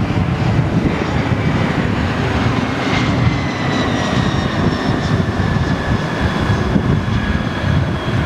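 Jet airliner engines: a heavy rumble with a high whine that slowly falls in pitch.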